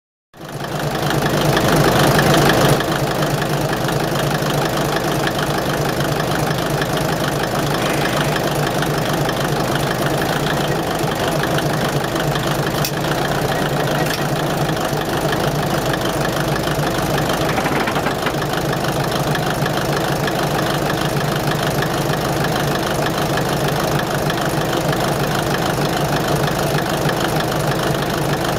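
Underfloor DMH17C diesel engine of a Kiha 20–type railcar idling steadily; it is an inline eight-cylinder, 17-litre railcar diesel. The sound is a little louder for the first three seconds, then even.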